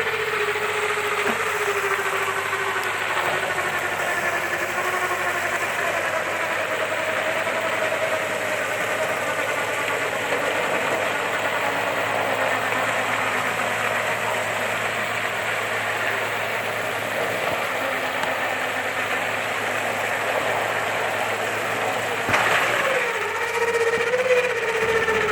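Vehicle winch pulling a stuck 4x4 out of mud, its motor whining under load with the pitch sagging as the strain builds and rising again near the end, over an engine running.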